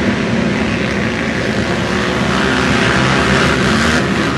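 A pack of racing ATVs running together at high revs as they pull away from the start, many quad engines blending into one loud, continuous drone.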